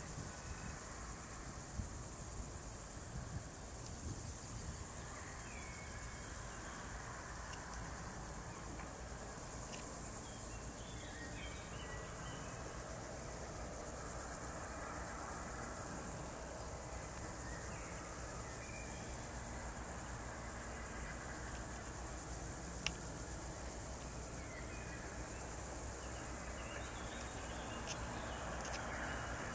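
A steady, high-pitched insect chorus trilling without a break, with the low rumble of distant diesel locomotives running slowly underneath.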